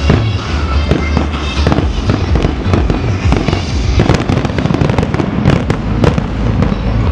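Aerial fireworks bursting, with many sharp cracks in quick succession that are thickest in the second half, over loud music with a steady bass.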